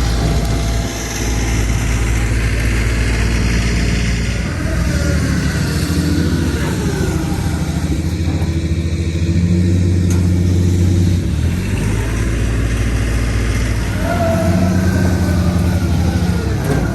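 Heavy engine running and revving up and down under load, straining to pull a stuck trailer through mud.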